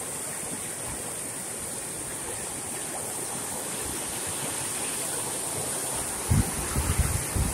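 Steady rush of water pouring over the concrete spillway of an overflowing village tank. A few low thumps come in from about six seconds in.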